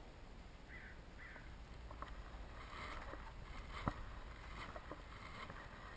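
Faint, quiet outdoor ambience with a low rumble and a few scattered soft clicks and knocks, the sharpest about four seconds in, and two faint short high chirps about a second in.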